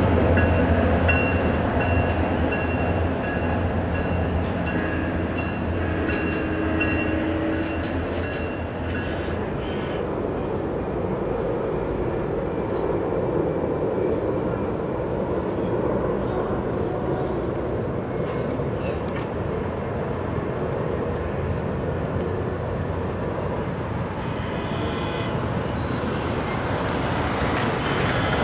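SunRail commuter train's MP32PH-Q diesel locomotive and bi-level cars passing and pulling away. Its low engine drone and a thin high whine fade over the first ten seconds or so, leaving a steady rumble of the receding train that swells slightly near the end.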